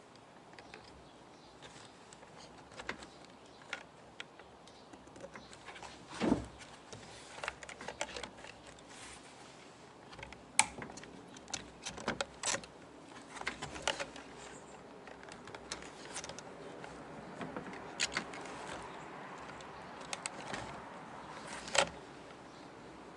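Irregular small clicks, taps and knocks of parts being handled and fitted while a car's fuel pump assembly is reassembled, with a louder knock about six seconds in and several sharp clicks in the second half.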